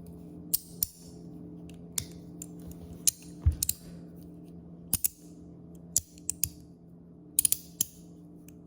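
Magnetic mini folding fidget fan being slid open and shut, giving sharp, snappy magnetic clicks at irregular intervals, often in quick pairs or clusters, over a faint steady hum.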